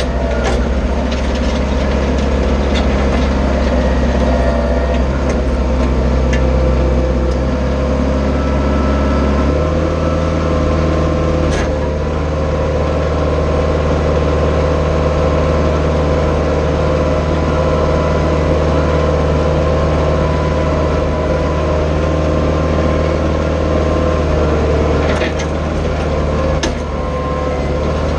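Branson 4520 tractor's diesel engine running steadily while working a box blade. Its note changes about ten seconds in, and a few short knocks come through.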